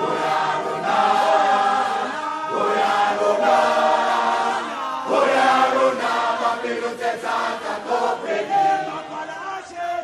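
Background music: a choir of voices singing in held, chant-like phrases.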